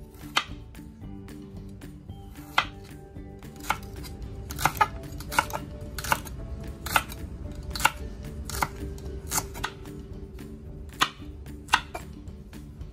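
Chef's knife chopping vegetables on a wooden cutting board: a series of sharp knocks, each stroke hitting the board, roughly one to two a second with small pauses, over faint background music.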